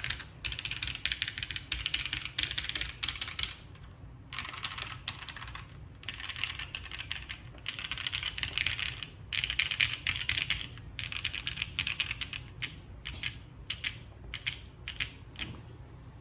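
Typing on a Rosé TKL mechanical keyboard with lubed, filmed JWK Marshmallow switches (spring-swapped to TTC 53g double-stage), a top-mounted polypropylene plate and GMK Frost Witch keycaps. Fast runs of keystrokes are broken by short pauses, and near the end the typing thins to scattered single keypresses.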